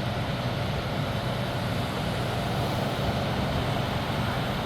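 Heavy engine of a crane running steadily, a constant low drone with no change in pitch or level.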